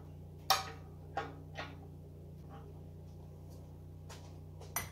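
A few sharp clicks and light taps of small hard parts being handled, over a steady low hum.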